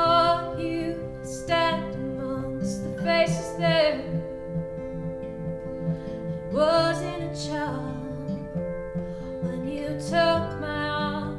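A woman singing in short phrases with pauses between, over acoustic guitars and a keyboard holding steady chords.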